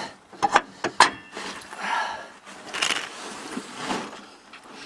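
A few sharp metallic clicks and knocks, then scraping and rustling, as the bolt of a compressed rear shock absorber is worked into its lower mount.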